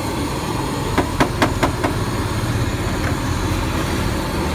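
A hammer striking something in a shallow metal tray: five quick blows about four a second, around a second in. Under them runs a steady low rumble of street traffic.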